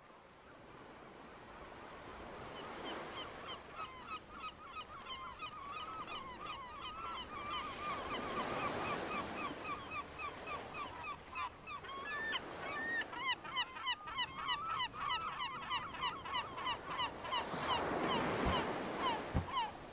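A flock of geese honking, many short overlapping calls in quick succession over a background rush, fading in at the start and growing busier about two-thirds of the way through.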